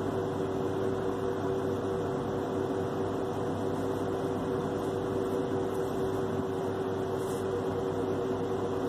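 Steady mechanical hum with two steady tones over a low, even rushing noise, like a running fan or air conditioner.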